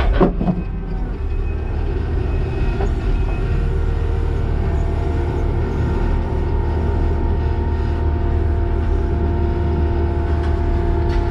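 Kubota SVL90-2 compact track loader's diesel engine running hard, with a steady hydraulic whine over the rumble, as the tooth bucket works at breaking a concrete slab.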